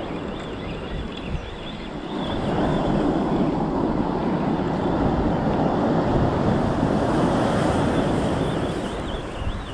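Sea waves washing onto the beach with wind buffeting the microphone; the surf swells louder about two and a half seconds in and eases off near the end.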